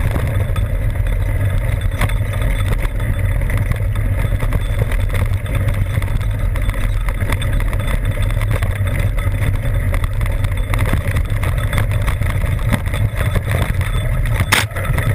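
Wind rumbling on the camera's microphone as a mountain bike rides fast over rocky singletrack, with steady rattling and clatter from the bike and tyres on the rough trail, and one sharper knock near the end.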